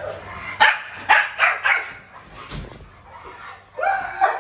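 Dog barking and yelping: four quick, sharp barks in the first two seconds, then a longer yelping call near the end.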